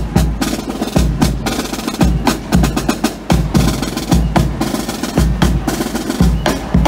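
Parade drums playing a steady marching rhythm: quick sharp snare strokes over deep bass drum beats at an even pace.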